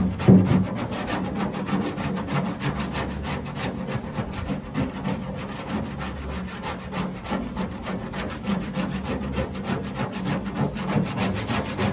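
Hand scraper scraping paint-stripper-softened paint off a 1932 Ford's steel door, in quick, evenly repeated rasping strokes.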